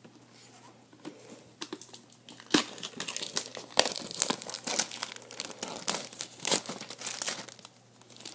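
Plastic shrink wrap being torn open and peeled off a cardboard box, crinkling and crackling in irregular bursts. It is sparse for the first second and busiest from about two and a half seconds in.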